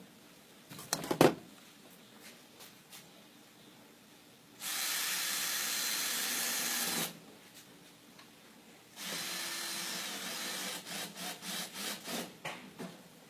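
Cordless drill/driver running in two steady bursts of a couple of seconds each, driving screws back in while the microwave is reassembled. The second burst breaks into a run of short stop-start pulses near the end, and there is a sharp knock about a second in.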